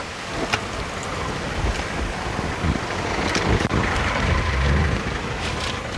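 Strong wind buffeting the microphone: a rough, shifting rumble that swells and eases, with a few faint clicks.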